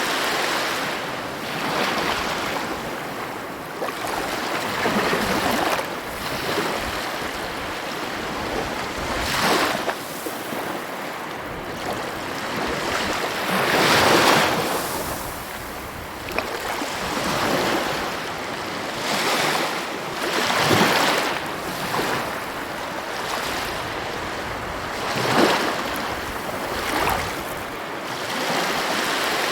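Ocean waves breaking and washing on the shore, a steady hiss of surf that swells with each wave every few seconds, the biggest about halfway through.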